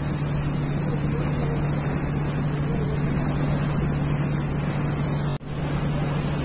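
Steady low engine hum of a river passenger launch, heard on board, with wind and water noise over it. The sound cuts out for an instant about five seconds in, then the same hum carries on.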